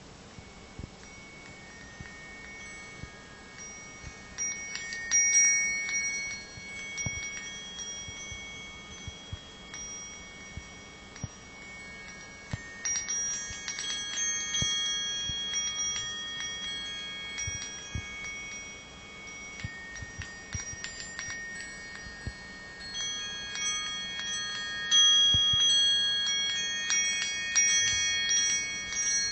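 Homemade brass-tube wind chime ringing: the tubes clink against one another in irregular clusters, each strike leaving clear high tones that hang on and overlap. The ringing is busiest about five seconds in, around the middle, and again near the end.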